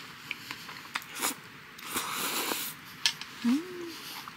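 Close-up mouth sounds of a person eating jjajangmyeon noodles: slurping and chewing in short noisy bursts, with a sharp mouth click about three seconds in. A brief rising hummed "mm" follows soon after.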